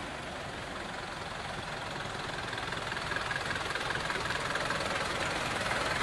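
Truck engine running steadily, slowly getting a little louder.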